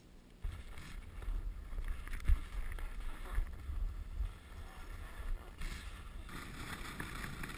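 Wind rumbling on a GoPro Hero 2 while skiing downhill, with the skis hissing over the snow; it starts about half a second in and comes in gusts.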